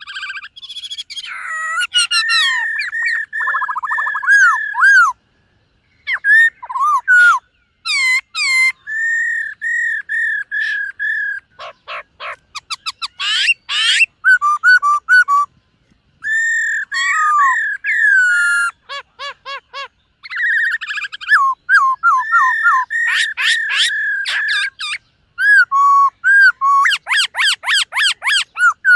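Black-throated laughingthrush singing a loud, varied song of clear whistled notes, rapid trills and sweeping slurs, in phrases broken by short pauses.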